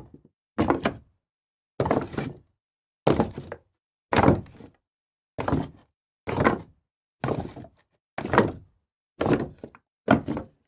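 Pieces of wood tossed down one at a time, about ten in all, roughly one a second. Each lands with a sharp knock followed by a short clatter as it bounces and settles, with silence between the throws.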